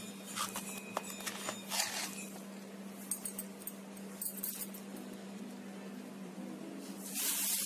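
Scattered light clicks and clinks of puja vessels being handled around a steel plate, over a steady low hum. A hissing noise comes in near the end.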